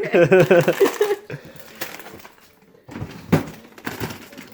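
A brief wavering, pitched vocal sound during the first second. Then a few light knocks and rustles as items are put back into a refrigerator.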